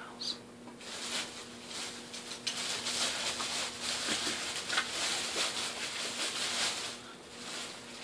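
Rustling and crinkling of shopping bags and packaging as items are rummaged through off to one side. It starts about a second in and eases off near the end.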